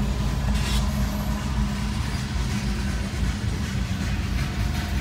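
Diesel engines of passing CSX freight locomotives, a steady low rumble heard from inside a car at the crossing.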